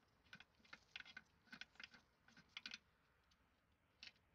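Faint, irregular light clicks and taps of hands and a small tool on a Fiat FIRE engine's valve cover and its screws as it is unbolted. The clicks are busiest in the first three seconds, with a single click near the end.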